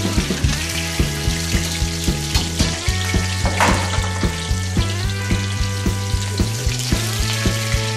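Food frying and sizzling in a hot wok on a gas burner, with a brief louder hiss about halfway through, over background music with a steady beat.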